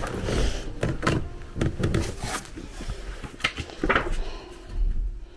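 Handling noise: scattered clicks, knocks and rustles of a paper card and cardboard being moved about, with a couple of low bumps.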